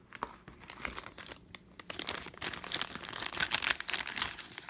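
Crinkling and light clicking from plastic being handled, sparse at first and much denser from about two seconds in.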